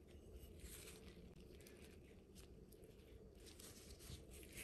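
Faint, irregular soft rustles and scrapes of disposable gloves and paper towel as raw shrimp are handled on a wooden board, over a low steady room hum.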